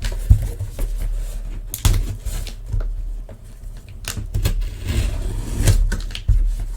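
Cardboard boxes being opened and handled: irregular scrapes, rustles and knocks of cardboard and packaging.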